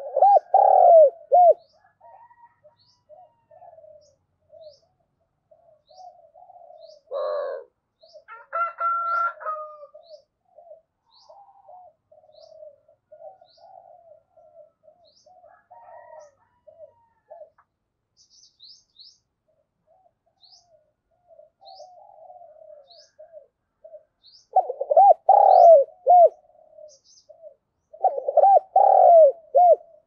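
Spotted dove cooing: loud rolling coo phrases right at the start, again around a quarter of the way in, and twice near the end, with soft low coos between them. Faint short high chirps repeat about once a second.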